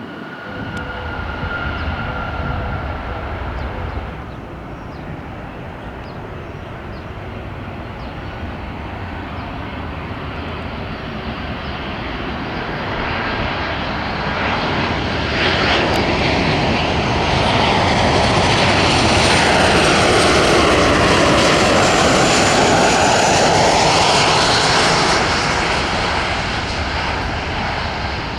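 Jet airliner passing close by. Its engine noise builds steadily, is loudest a little past the middle with a sweeping change in tone as it goes by, and eases off near the end.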